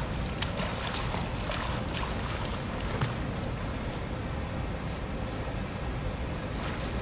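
Pool water splashing and lapping around a child swimming under the surface, with a few small splashes in the first three seconds, over a steady low rumble.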